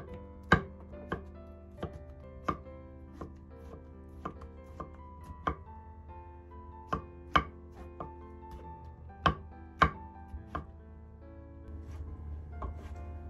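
Chef's knife slicing king oyster mushrooms on a wooden cutting board: the blade knocks on the board in sharp, irregular taps, about a dozen, fewer and softer in the last couple of seconds. Light background music plays underneath.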